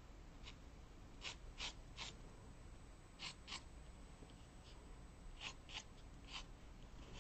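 Pencil drawing short straight lines on watercolour paper: about ten faint, brief strokes, several of them in quick pairs.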